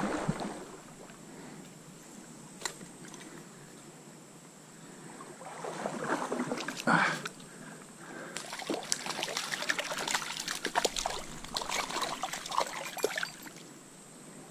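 Water splashing and sloshing in a trout stream, in two bouts: a first one about six seconds in that ends in a louder splash, then a longer run of splashing from about eight to thirteen seconds.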